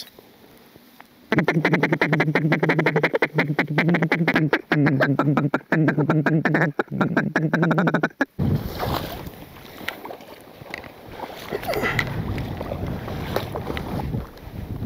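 Duck call blown in a fast, pulsing run of notes, in several bursts over about seven seconds, to draw in circling mallards. After it stops, wind rushes on the microphone.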